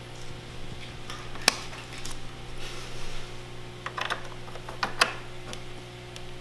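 Scattered sharp clicks and taps of RAM sticks being pushed into the iMac's memory slots to seat them, the loudest about a second and a half in. A steady low hum runs underneath.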